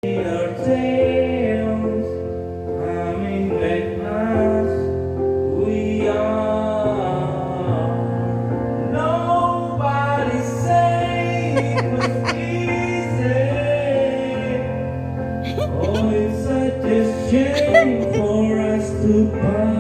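Music with a singing voice over held accompaniment chords.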